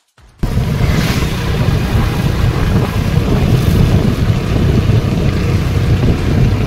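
Heavy wind buffeting the microphone of a moving motorcycle, a steady low rumble with the engine running underneath. The sound drops out for a moment at the very start.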